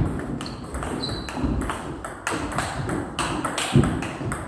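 Table tennis rally: the celluloid ball clicking sharply off the bats and table about three times a second. Two heavier thumps, right at the start and a little before the end, are the players' feet stamping on the wooden floor as they lunge.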